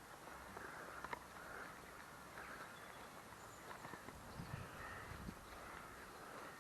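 Faint outdoor quiet with distant caw-like bird calls, a few at a time.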